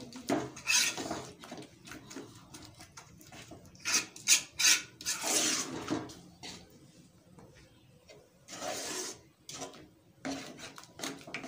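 Metal spoon scraping and knocking against an aluminium pot as thick cooked dal and meat are mashed smooth, in irregular strokes that are loudest about four to six seconds in.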